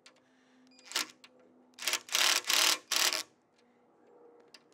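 Cordless driver run in three or four short bursts, driving a screw through the cast-iron bench end into a wooden slat, with a single click about a second before.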